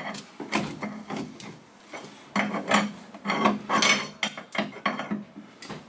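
Steel pry bar scraping and knocking against the underside of a 1973 VW camper van as it levers a bolted part loose. A run of irregular scrapes and clanks, with a short lull about two seconds in.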